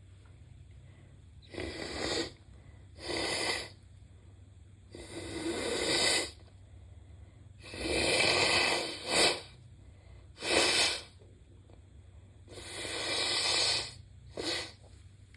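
Stuffed-up sneezes and nose blowing from a person with a heavy head cold: about eight separate noisy bursts, some swelling over a second before breaking off.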